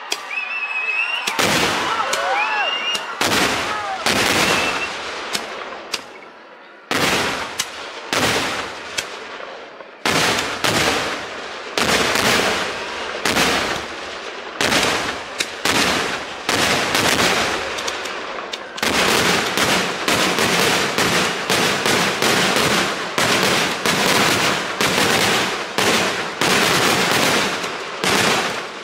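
Kerala temple fireworks (vedikettu) going off in loud sharp bangs, first in clusters with short gaps, then from about two-thirds of the way in as a near-continuous rapid barrage.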